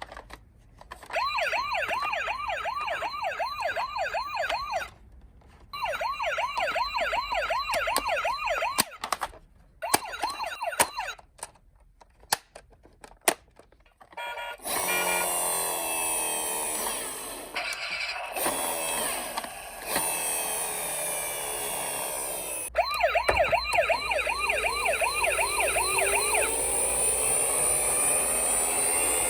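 Toy emergency-vehicle minicars' electronic sirens sounding in bursts, a rapid warble rising and falling a few times a second, with clicks between bursts. About halfway through, several sirens sound at once over a rougher, noisier background.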